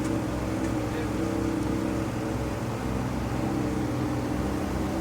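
Car engine running at a steady speed, a constant drone that holds one pitch.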